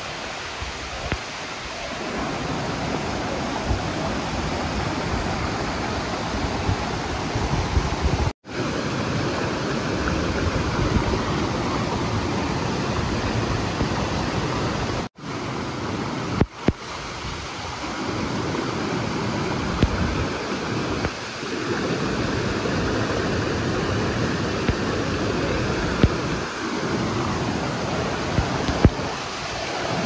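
Steady rush of the Tiu Kelep waterfall and the rocky stream below it, an unbroken wall of water noise. It cuts out for an instant twice, about eight and fifteen seconds in.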